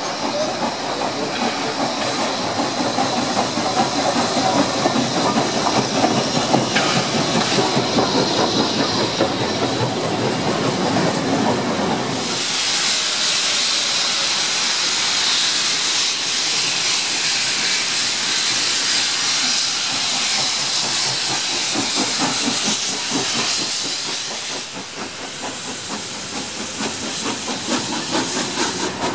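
NSW C36 class steam locomotive 3642 running past with its train. About twelve seconds in, a strong, steady hiss of escaping steam takes over. Near the end the hiss fades to the carriages' wheels clicking over the rail joints.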